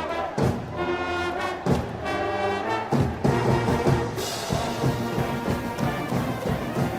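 Brass band music: sustained brass notes with drum hits, turning into a steadier drum beat about halfway through.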